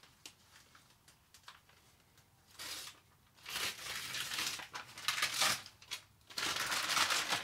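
Paper backing being peeled off a self-adhesive insulation sheet: faint ticks at first, then crinkling and tearing noises in bursts, loudest over the second half.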